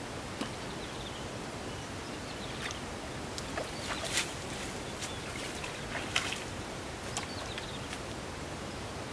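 A hooked fish splashing at the surface of a pond against a fishing line: a scattering of short splashes, the loudest about four and six seconds in, over a steady outdoor hiss.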